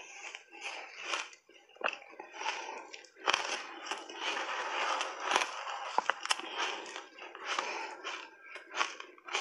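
Crunchy shaved ice coated in matcha powder being bitten and chewed in big mouthfuls: a run of crunching with a few sharp cracks.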